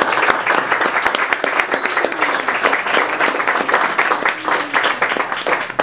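Audience applauding: dense, continuous clapping.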